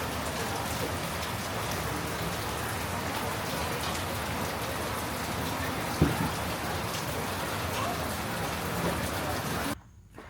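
Steady heavy rain pattering on a surface, with scattered drop clicks and one louder knock about six seconds in. It cuts off abruptly near the end.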